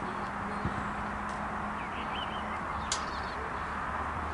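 Steady outdoor background noise with faint short bird chirps, and one sharp knock about three seconds in.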